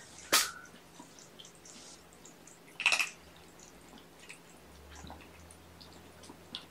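A congested kitten sneezing twice, short and sharp, about half a second in and again about three seconds in, with faint small clicks in between.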